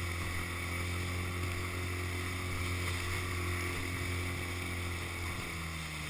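Small outboard motor running at a steady speed, pushing an inflatable dinghy across choppy water, with a hiss of water and wind.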